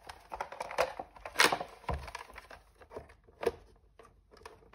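Plastic speaker housing and wiring being handled and pressed together: an irregular run of clicks, knocks and rustles, loudest about a second and a half in, with a dull thump near two seconds.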